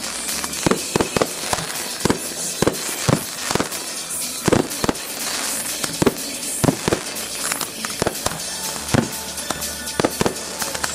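Fireworks display: aerial shells bursting in an uneven series of bangs, about two a second, over a continuous hiss.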